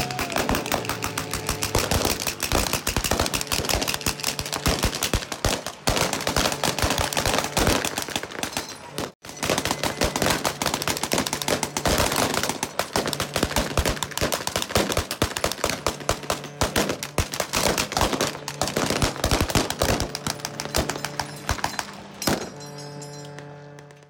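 Rapid, continuous gunfire from reenactors' blank-firing machine gun and rifles, shot upon shot, over a steady low drone. The firing breaks off for an instant about nine seconds in and thins out near the end.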